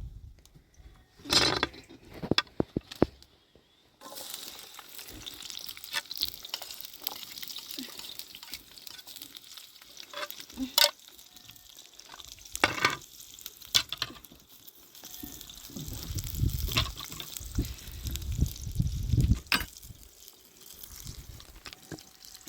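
Food frying with a steady sizzle that starts suddenly about four seconds in, with scattered clicks and knocks throughout and a low rumble for a few seconds past the middle.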